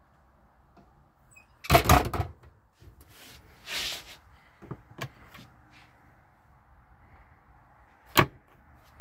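Small cabinet doors with brass catches being handled: a loud clatter as a door is shut and latched about two seconds in, then a short rustle, a few light clicks, and one sharp latch click near the end.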